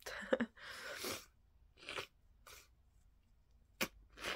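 A woman sniffling and blowing her nose into a paper tissue while crying: a string of short, noisy breaths through the nose, the longest about a second in.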